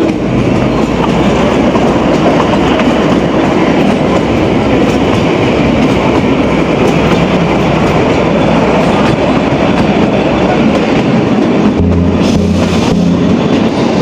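Kalka–Shimla narrow-gauge toy train running, heard from inside a carriage beside the open window: the steady running noise of the coaches on the rails.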